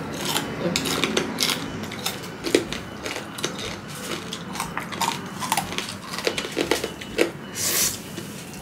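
Close-up mukbang eating sounds: crunching and chewing of crispy pork chicharon, with chopsticks clicking on the plate, and a short slurp of noodles near the end.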